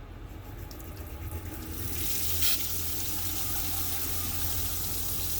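Water running from the van's fold-up sink faucet into a small galley sink, swelling to a strong steady splash about two seconds in. A steady low hum runs underneath.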